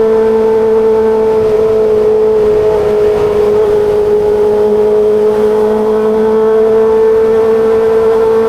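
Kawasaki ZX25RR's inline-four engine running at high, steady revs under way, with a high, even exhaust note whose pitch sags slightly a couple of seconds in and then holds.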